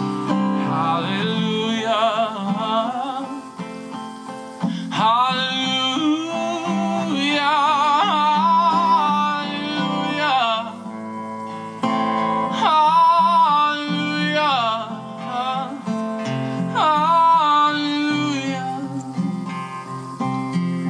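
A male singer holding long notes with vibrato over acoustic guitar accompaniment, in four sung phrases with short gaps between them.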